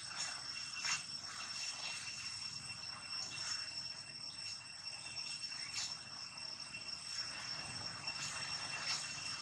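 Steady high-pitched insect drone, with light, scattered crackles of dry leaf litter under monkeys' feet.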